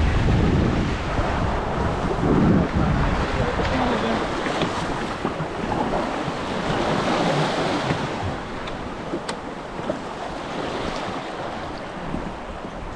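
Wind buffeting the microphone over the rush and splash of water along the hulls of a Hobie 16 catamaran under sail. The wind rumble is heaviest in the first few seconds, then eases.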